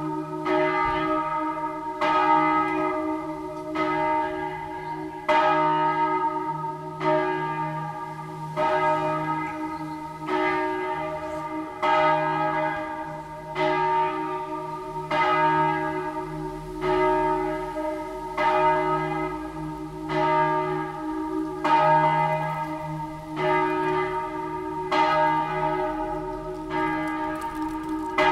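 A single large church bell, the 1,203 kg E-flat bell cast by Carlo Chiappani in 1906, swung full circle in the Tyrolean manner, its clapper striking about every one and a half seconds with a long deep hum ringing on between strokes. This is the 3 p.m. ringing of the great bell alone, in memory of the death of Christ.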